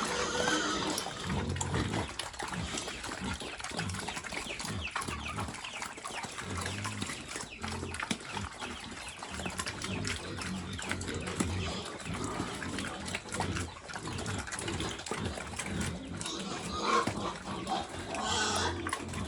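Pigs eating a mash of vegetables and rice: continuous wet chewing and smacking, with short low grunts and a few higher calls near the end.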